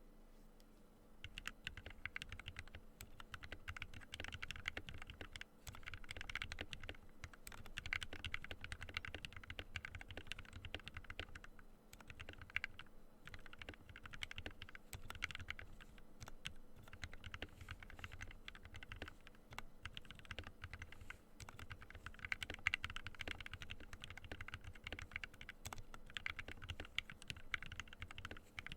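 Typing on a Ducky One 2 Mecha mechanical keyboard fitted with Gateron Ink Black v2 linear switches, lubed with Krytox 205g0 and filmed, on stock stabilizers: a continuous stream of keystrokes starting about a second in.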